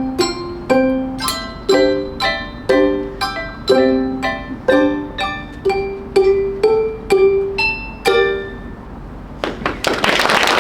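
Handbell choir ringing a melody, about two notes a second, each note struck sharply and ringing on as it fades. The piece ends on a last ringing note about eight seconds in, and applause breaks out near the end.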